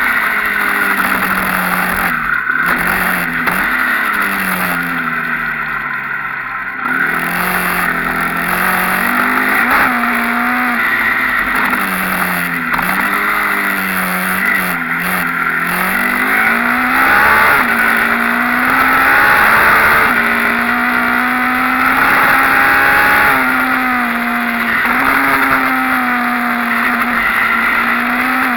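Enduro motorcycle engine revving up and down over and over under changing throttle. The pitch sags and the sound eases off around five seconds in, then the engine picks up again.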